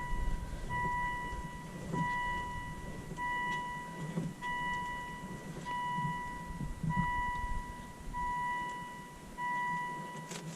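A 2003 Volvo XC70's warning chime repeating steadily with the ignition on and the engine off: one even, pure tone about half a second long, roughly every 1.25 seconds, about nine times.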